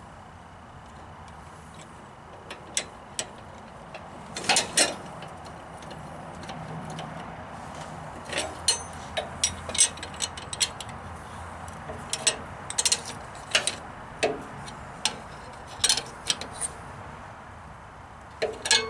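Steel wrenches clinking and tapping against a hydraulic hose fitting and valve as the fitting is tightened: irregular sharp metallic clicks, several in quick clusters.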